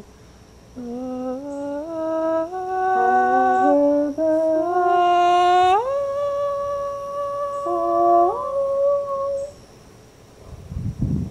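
A voice humming a slow melody without words, held notes stepping upward, then sliding up into a long high note about halfway through and sliding up again a little later. A brief low rumble comes near the end.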